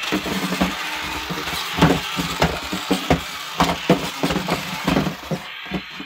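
Jakks Pacific Hulk Smash RC toy spinning on its back on a tabletop: its small electric motor whirring, with irregular hard plastic knocks as the fists and body strike the surface. The whirring stops near the end.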